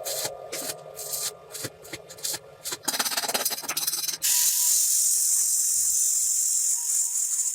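Workshop tool noise: short irregular rasping strokes, then a denser burst, then a steady high hiss that starts suddenly about four seconds in.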